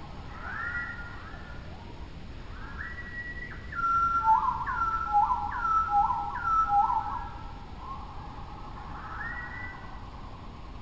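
Repeated high whistled notes that rise and fall, often several pitches at once, with a louder run of four quick falling notes in the middle.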